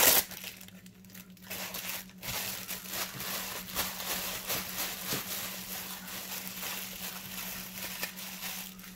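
Clear plastic bag crinkling as it is pulled off a gaming headset: a loud rustle at the start, then steady faint crinkling and handling noise.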